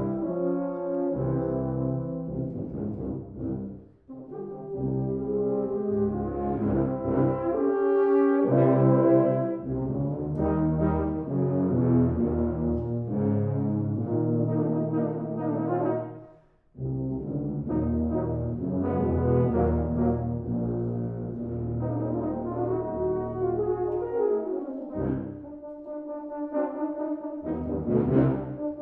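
Tuba and euphonium quartet (two euphoniums, two tubas) playing rhythmic brass chords, with low tuba notes under the euphoniums' higher parts. The ensemble breaks off briefly for a rest about four seconds in and again a little past halfway.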